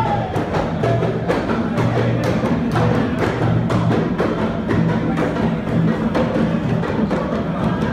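Devotional music from a gathering of men: sharp percussive beats at a fast, steady rate over sustained chanted voices.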